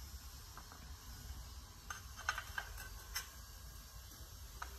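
Quarry tiles being set by hand into a metal wire spacer grid on thinset: a few light, scattered clicks and taps as tile edges meet the grid wires and neighbouring tiles, over a low steady hum.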